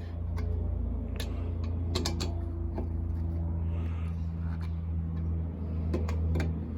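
Scattered metal clicks and clinks of a lug wrench bar working the wheel nuts on a spare tyre, over a steady low mechanical hum.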